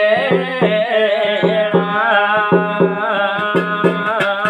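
Garhwali jagar music between sung lines: a drum beating a steady rhythm of about three strokes a second under held melody notes, the notes wavering in the first second or so.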